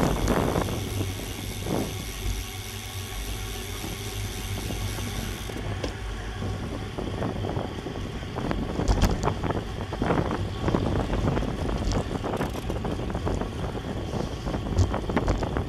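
Wind buffeting a GoPro's microphone on a moving racing bicycle, a steady low rumble with road noise and scattered short knocks. A high hiss drops away about six seconds in.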